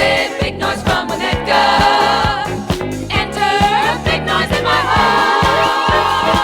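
Disco music from a 1979 12-inch single playing, with a steady beat and bass line under group vocals.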